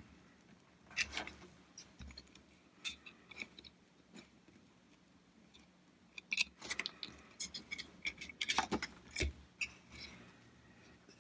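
Hands assembling the DSO150 oscilloscope kit's plastic case and parts: scattered small clicks, taps and short scrapes, busiest from about six to nine seconds in.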